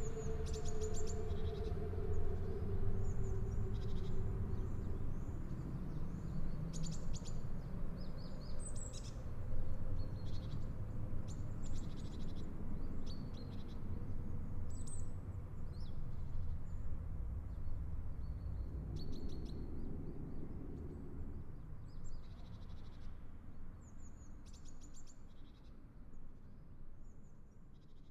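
Songbirds chirping and twittering over a low, steady rumble, a forest ambience. A held low tone fades away in the first few seconds, and everything fades out near the end.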